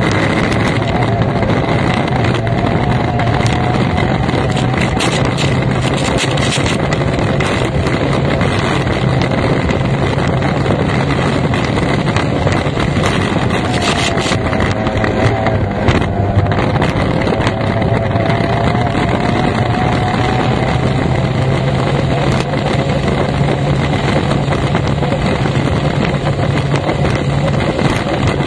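F1 racing powerboat's outboard engine running hard, with heavy wind on the microphone and water noise. The engine note wavers up and down a few times.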